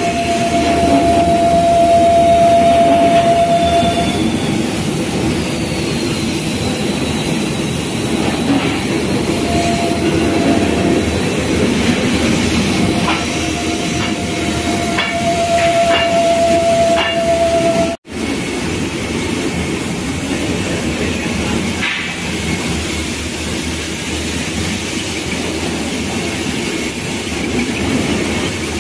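Compressed-air paint spray hissing steadily over leaf springs on a factory paint line, with machinery running. A steady whine comes and goes, in the first few seconds and again from about nine to seventeen seconds in, with a few light clicks in that stretch.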